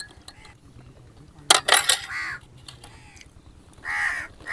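Crows cawing, with calls about a second and a half in and again near the end, over a few light clicks and clinks of a spoon against teacups.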